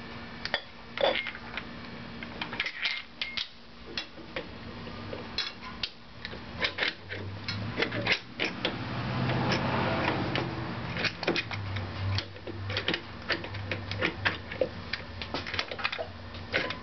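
Irregular metallic clinks and rattles of a motorcycle roller primary chain and compensator sprocket being handled and slid onto the engine shaft, with a low hum in the middle stretch.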